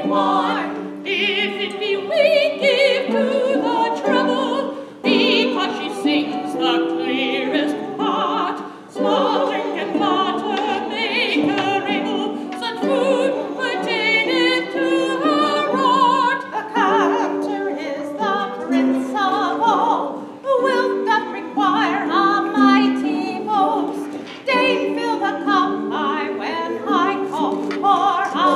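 A small group of voices singing a period song in harmony, accompanied by harps.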